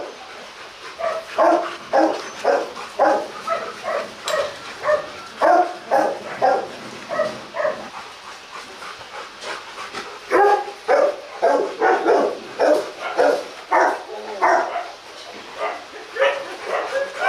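Rottweiler barking repeatedly, about two barks a second, with a pause of about two seconds near the middle.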